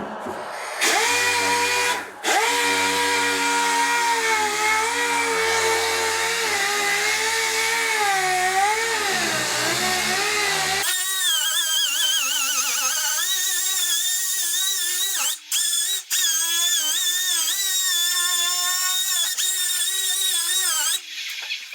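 Dual-action (DA) sander running on the truck cab's sheet metal, a steady whine whose pitch wavers as it works. It starts about a second in, cuts out briefly a few times, and stops near the end.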